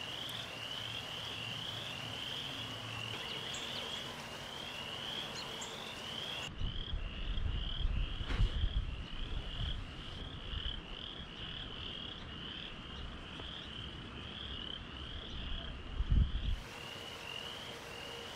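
A small animal calling steadily outdoors: short, high, rising chirps repeating about twice a second. In the middle stretch a low rumble joins in, with a couple of dull bumps.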